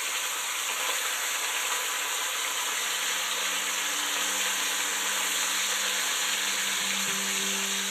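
Pork loins frying in butter and oil in a sauté pan, a steady sizzling hiss.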